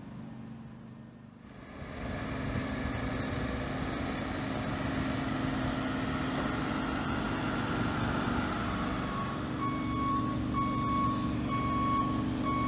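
Pavement-marking truck's engine running steadily; in the second half its reversing alarm beeps about once a second.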